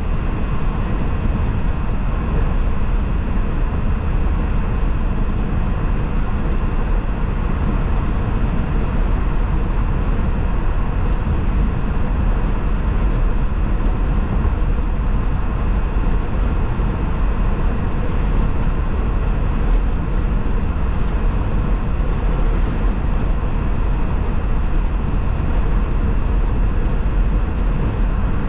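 Steady low rumble of tyre and wind noise from a car driving at highway speed on the interstate.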